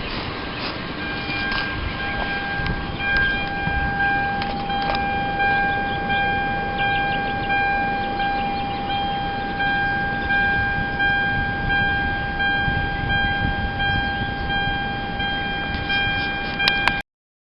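2006 Hyundai Sonata's 3.3-litre V6 idling after a spark plug and PCV valve change, with a steady high-pitched whine over the running. The sound cuts off suddenly near the end.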